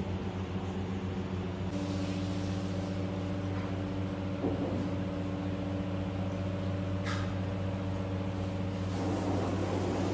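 Steady low mechanical hum with a drone and a few steady tones over it, shifting slightly near the start and near the end.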